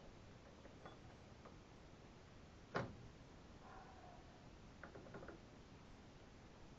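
Mostly quiet, with a few faint clicks and one sharp knock about three seconds in, from transmission parts being handled and fitted together.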